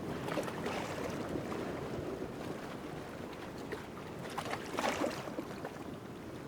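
Light waves lapping and sloshing as they slide past rocks at a rocky point in a channel, with a steady ocean roar behind. A louder splash comes about four and a half seconds in.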